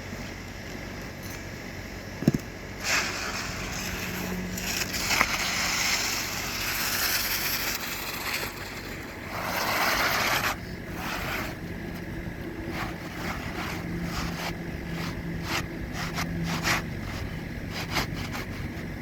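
Roofing work on brittle shingles: scraping and crackling as shingles are pried and worked loose, with a sharp click a couple of seconds in and a run of short irregular clicks in the second half.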